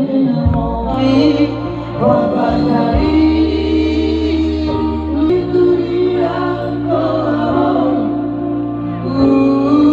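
Background music: a song with group singing over a steady bass line.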